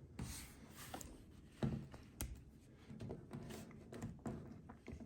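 Faint, scattered clicks and taps of plastic action figures and display stands being handled and set down.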